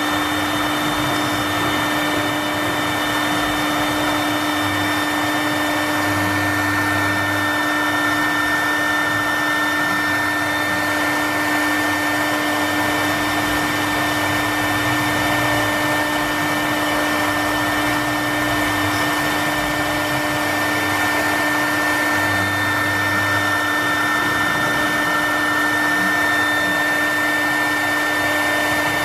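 CNC router's high-speed spindle motor running with a steady whine over a hiss, with a low rumble swelling briefly a few times.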